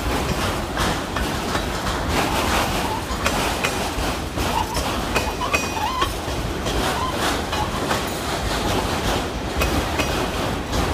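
Autorack freight cars rolling past, their steel wheels clattering over rail joints in an uneven clickety-clack over a steady rumble.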